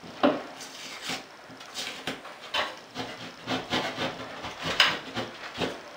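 A metal scraper blade scraping and picking at the edge of a painted popcorn ceiling to start the drywall face paper peeling, heard as a series of short, irregular scrapes.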